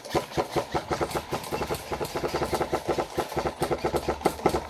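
Airsoft electric gun firing full-auto: a rapid, evenly spaced rattle of shots, several a second, over the gun's whirring gearbox.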